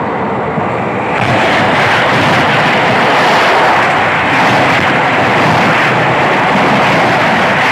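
Another train passing close alongside on the adjacent track in the opposite direction, a loud steady rush of wheels and air heard from the open door of a moving passenger train. It cuts in suddenly and grows louder about a second in.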